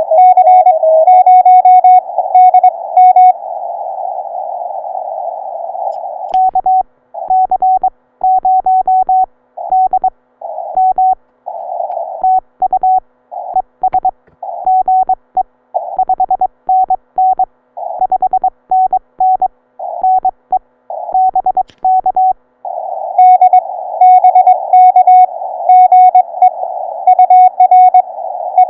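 Morse code heard on a ham radio transceiver on 40 meters: a steady mid-pitched CW note keyed in dots and dashes over a band of hiss, the hiss cutting in and out between about six and twenty-two seconds in. At the start and again from about twenty-three seconds in, a higher-pitched beeping sidetone keys code as well and is the loudest sound.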